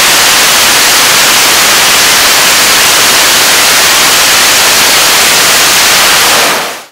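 A 75-tonne-class kerosene–liquid-oxygen rocket engine firing on a test stand, a very loud, steady rushing noise of the exhaust with nothing else heard. The sound fades out in the last half second.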